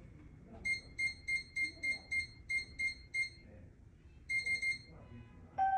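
Digital door lock keypad beeping as a code is punched in: nine short high beeps at about three a second, then a quick run of four. A chime melody starts right at the end.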